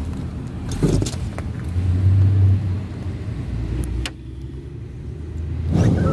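Road vehicle running: a steady low rumble with a few clicks and knocks, swelling around two seconds in, dropping after a sharp click about four seconds in, and rising again near the end.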